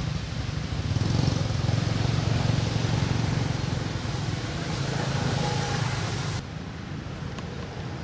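Motor scooter engine idling: a steady low rumble that drops in level about six and a half seconds in.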